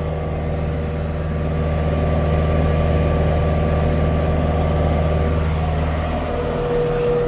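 Bobcat T650 compact track loader's diesel engine running steadily. About six seconds in, the low engine note drops away and a steady whine comes in.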